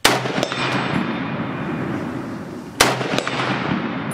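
Ohio Ordnance BAR M1918A3 rifle fired twice, single shots a little under three seconds apart, each followed by a long echo.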